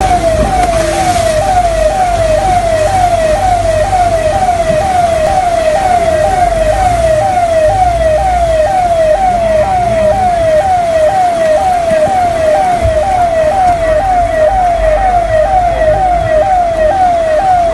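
Siren-like wailing tone, falling in pitch and snapping back up about twice a second, repeating evenly without a break. A low rumble runs underneath.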